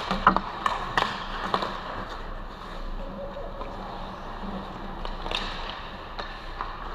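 Hockey sticks and puck clacking on the ice in a scramble at the net: a quick run of sharp clacks in the first second and a half, then skates scraping and a steady hiss, with a couple of lighter clacks near the end.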